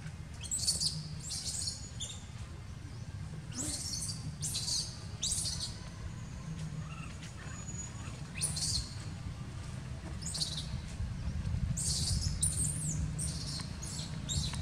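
Short high-pitched animal chirps in scattered clusters, over a steady low rumble.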